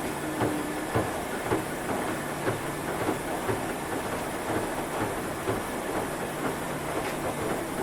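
Washing machine in its spin cycle: a steady whir and hum from the turning drum, with regular knocks about twice a second.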